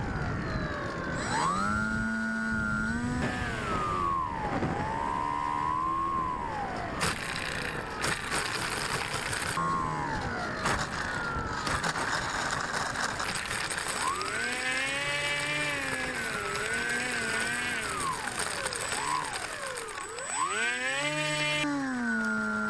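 Electric motor and propeller of a Quanum Observer FPV plane, heard from its onboard camera, whining and repeatedly rising and falling in pitch with the throttle as it lands and runs along the grass. Under it is a rushing noise that turns rough and rattling from about seven seconds in.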